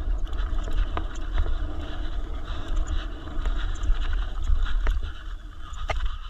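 Wind rumbling on a rider-mounted camera's microphone while an electric mountain bike rides over rough trail, with scattered sharp clicks and rattles from the bike.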